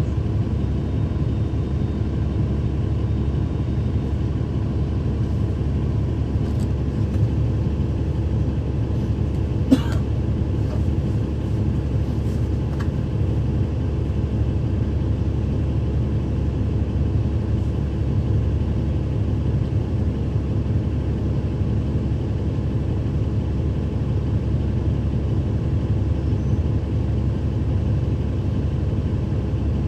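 Cummins ISL9 diesel engine of a 2012 NABI 40-ft transit bus, heard from on board, running with a steady low drone. A single sharp knock about ten seconds in.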